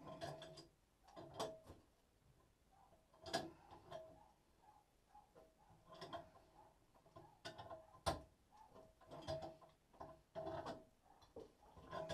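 Irregular clicks and metallic knocks, some briefly ringing, from hands working at the chrome drain trap and pipe fittings under an old wall-mounted washbasin to loosen them for removal.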